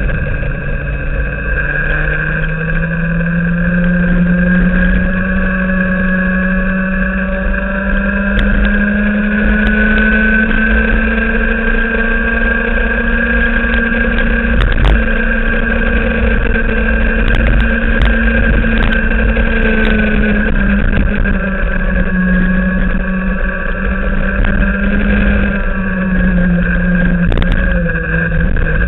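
Racing kart engine running at high revs through a lap. Its pitch climbs over the first few seconds and holds high, dips a few times in the second half, then drops near the end as it slows for a corner before starting to climb again.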